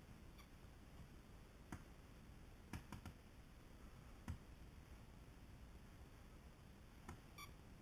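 Near silence: room tone with a handful of faint, sharp clicks, a few close together about three seconds in and a couple more near the end.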